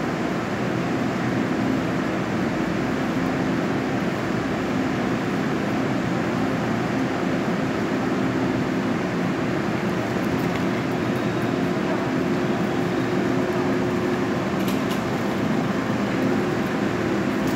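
Taiwan Railways push-pull Tze-Chiang express coach at the platform, giving a steady mechanical hum with a fan-like rush from its rooftop air-conditioning and equipment. The hum holds level throughout.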